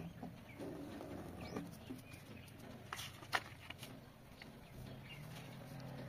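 Paper being folded and creased by hand: faint rustling and a few sharp crease snaps, the loudest a little past three seconds in. Birds call faintly in the background.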